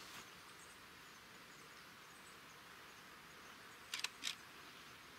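Faint outdoor background hiss, with three short scratchy noises close together about four seconds in.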